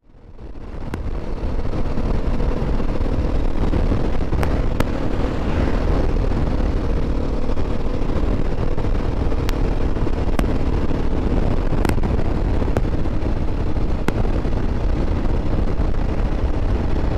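Dirt bike engine running at a steady cruise on a gravel road, with heavy wind rush on the helmet microphone and a few sharp ticks scattered through. The sound fades in over the first second or two.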